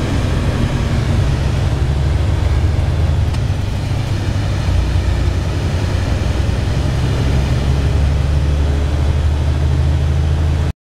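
Steady low drone of a vehicle's engine and tyre and road noise, heard from inside the cab while driving along the highway.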